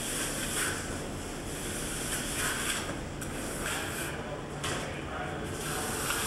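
Steel trowel scraping and spreading wet lime-and-cement base-coat plaster over metal lath: rough, raspy strokes about a second apart, over a steady low hum.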